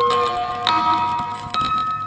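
Electronic chime tones sounding as held chords of a few pure notes, shifting to a new set of notes twice.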